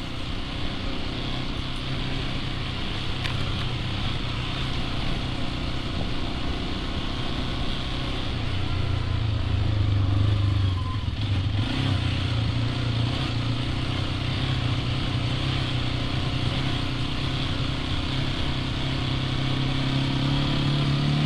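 Hero XPulse 210's single-cylinder engine running as the bike rides along, over a constant rush of wind and road noise. The engine note rises about eight to ten seconds in, dips briefly soon after, then holds steady.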